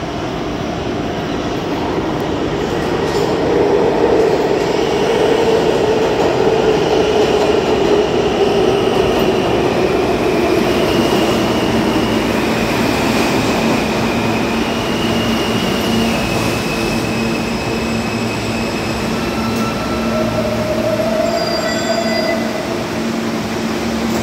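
A New York City Subway R160 train pulling into an underground station and braking to a stop: a loud rumble of wheels on rail that builds over the first few seconds, with wheel squeal in several high held pitches through the middle. Over the second half a steady lower hum and a few short whining tones come in as it slows.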